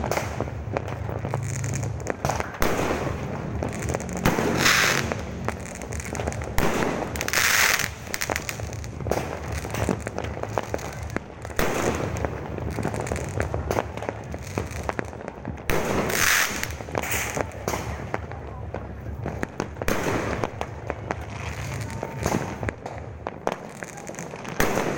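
New Year's Eve fireworks going off: a dense, steady run of bangs and crackles, with a few brief louder bursts every few seconds, over background voices.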